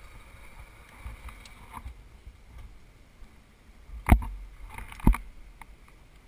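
Two sharp thumps about a second apart, over a faint low rumble.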